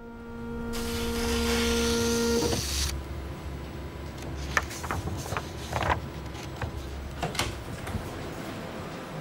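Office photocopier running: a steady hum with a loud whirring rush that stops about three seconds in, then a lower running sound with scattered sharp clicks.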